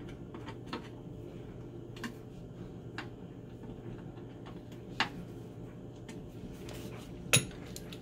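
Light scattered clicks and knocks of hands handling a plastic drain pipe and its slip-nut fitting on a garbage disposal outlet, with two sharper clicks about five and seven seconds in, over a steady low hum.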